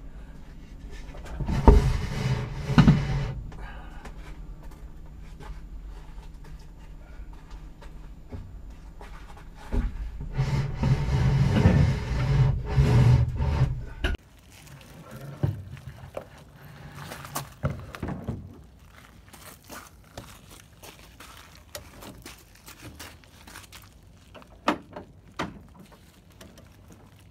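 Thunks and knocks from aircraft parts being handled during assembly: two loud thunks about two and three seconds in, then scattered lighter knocks and clicks. Low rumbling noise runs between about ten and fourteen seconds.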